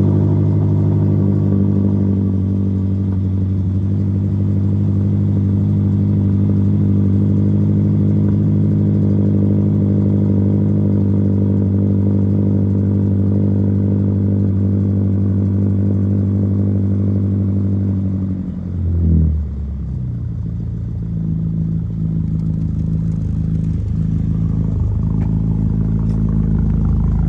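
BMW X6M's twin-turbo V8 running at a fast idle just after start-up. About two-thirds of the way through, the idle drops to a lower, lumpier beat and holds there.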